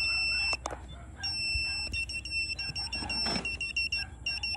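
WS-6933 satellite finder meter's buzzer. A steady high tone cuts off about half a second in, with a click or two of its buttons as a new transponder is selected. After a short pause it comes back as rapid, even beeping, several beeps a second: the meter's signal tone, showing that the selected Thaicom transponder is being received.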